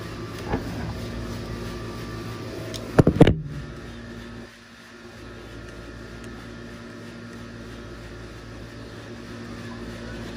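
Steady electric hum of an air-conditioner fan, with a quick cluster of sharp knocks about three seconds in. The hum drops in level a second or so later.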